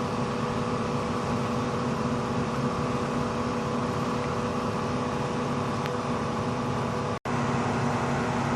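A vehicle engine idling with a steady, even hum. The sound cuts out for an instant about seven seconds in.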